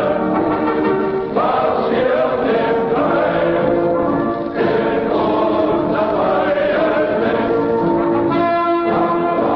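Choral music: a choir singing long held notes that change every second or so.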